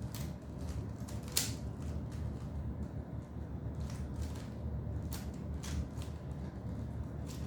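A plastic Rubik's Cube being turned, its layers clicking irregularly several times, over a steady low hum.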